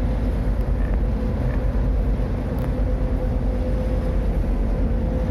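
Steady low drone of a car ferry's engines, with a constant hum running through it and no change in pitch.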